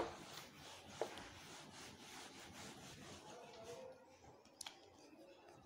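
Cloth duster rubbing over a whiteboard, wiping it clean: a faint hiss of repeated strokes for about four seconds, with a light knock about a second in and another near the end.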